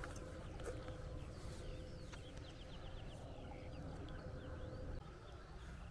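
Small birds chirping in quick short notes over a low rumble, with a faint steady hum that stops about five seconds in.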